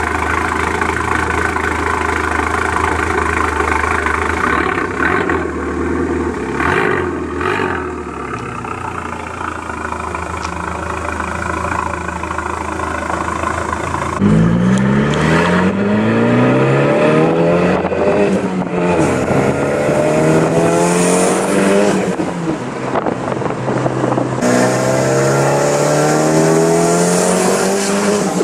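Turbocharged 2.0 four-cylinder of a MK4 VW Jetta, breathing through a 3-inch turbo-back exhaust with two small race mufflers. It runs at a steady deep idle, then about halfway through accelerates hard. Its pitch climbs, drops back at each gear change and climbs again several times.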